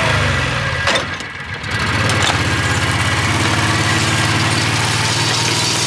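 Utility vehicle's engine running: its pitch rises and falls in the first second, dips about a second in, then settles into steady running.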